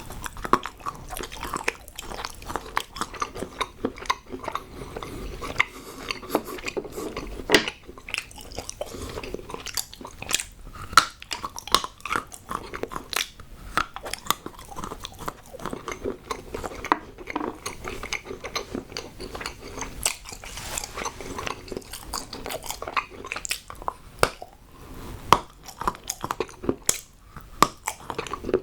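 Hard chocolate being bitten and chewed close to the microphone, with many sharp snaps and crunches.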